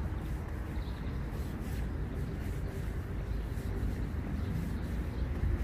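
Outdoor city ambience: a steady low rumble with no distinct event standing out.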